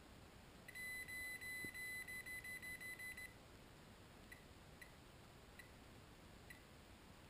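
Humminbird Piranha MAX 240 fishfinder beeping: a high electronic beep held for about a second, then broken into a quick run of short beeps for about a second and a half. A few faint single pips follow.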